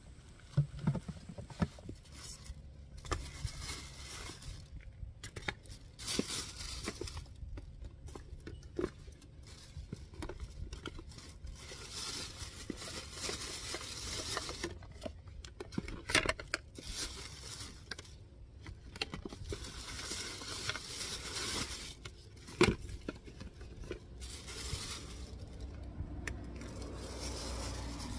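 Thin plastic shopping bags rustling and crinkling while toiletry bottles and small packages are handled and set into a clear plastic caddy, with scattered light knocks and clicks and one sharper knock late on.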